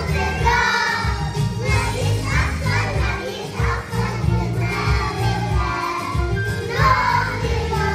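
Young children's voices singing along to a recorded song backing track with a steady bass line.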